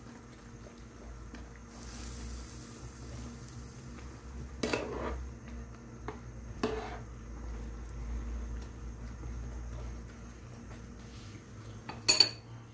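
Metal spoon stirring a pan of simmering chicken soup with napa cabbage, knocking against the pan in a few clinks, the loudest near the end, over a low steady rumble.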